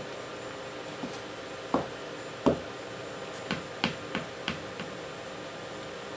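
Black leather cowboy boot heels knocking on a hard tiled floor as the wearer steps in and stands, several sharp footfalls at uneven intervals, the two loudest in the first half, over a steady hiss.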